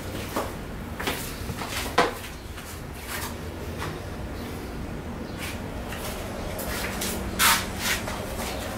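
Short puffs of breath blown through a plastic straw onto freshly poured epoxy resin to chase bubbles out of the coating, about ten puffs at irregular intervals.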